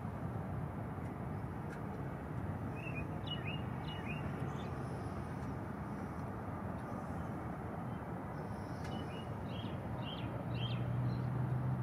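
Osprey calling: two short series of high chirps, a few notes each, about three seconds in and again near the end, over a steady low rumble that grows a little louder near the end.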